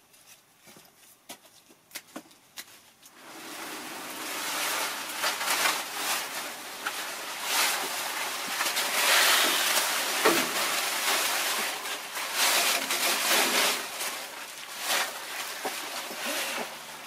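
A few scattered clicks, then, about three seconds in, loud, continuous rustling and crackling of leafy tomato and cucumber vines as they are pulled and handled by hand.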